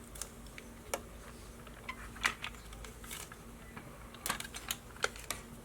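Light plastic clicks and taps from a Ronco Pocket Fisherman being handled as its repaired hinge is worked, irregular, with small clusters of clicks about two and four seconds in. A faint steady hum runs underneath.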